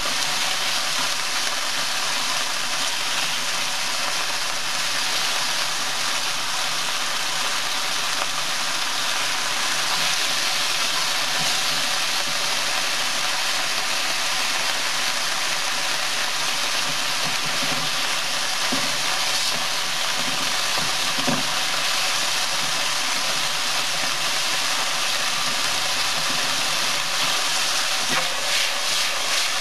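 Sliced meat in yakiniku sauce sizzling steadily in a nonstick frying pan while it is stirred with silicone-tipped tongs. A few knocks of the tongs against the pan come about two-thirds of the way in and again near the end.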